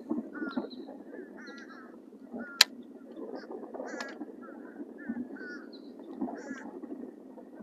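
Waterfowl calling repeatedly, short quacking or honking calls one after another, over a steady low background noise. A single sharp click sounds about two and a half seconds in.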